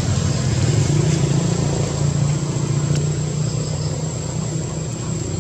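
Steady low hum of a running engine, fading slightly toward the end.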